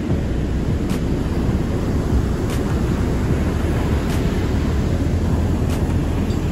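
Steady wind rumble on the microphone mixed with the wash of ocean surf breaking on the beach.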